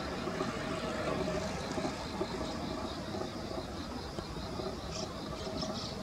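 Steady outdoor background noise with a faint high chirp pulsing about five times a second, and a few short high chirps near the end.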